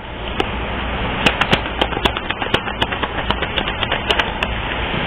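A run of irregular sharp clicks and snaps, most dense in the middle, over a steady background hiss.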